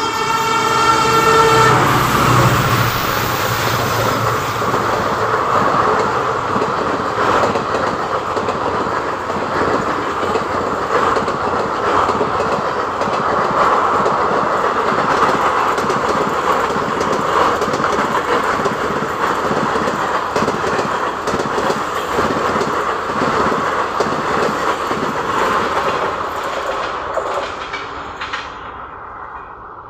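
Indian Railways express train hauled by a WAP-7 electric locomotive: its horn sounding and cutting off about two seconds in, then the train passing at high speed with a rapid clatter of wheels over the rail joints, fading near the end.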